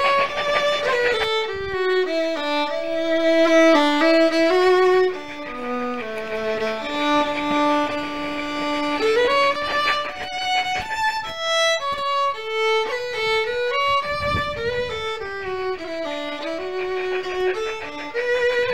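Background music: a fiddle playing a melody, its notes stepping and sliding from one pitch to the next.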